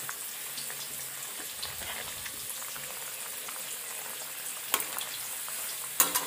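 Pork and brinjal stew sizzling and bubbling in a metal pan, a steady hiss. A metal spatula clicks against the pan a couple of times near the end.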